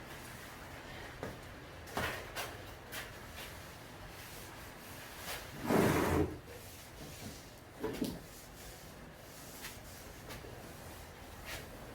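Scattered light knocks and clicks from objects being handled, with a louder rubbing scrape about six seconds in and a shorter one around eight seconds.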